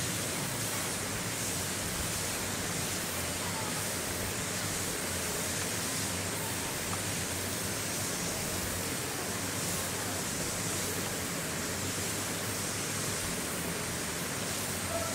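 Steady, even hiss of outdoor background noise with no distinct events, with a faint, thin high whine held throughout.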